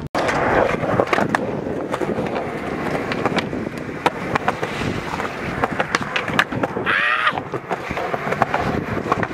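Skateboard wheels rolling on street pavement, with many sharp clacks and knocks of the board and trucks.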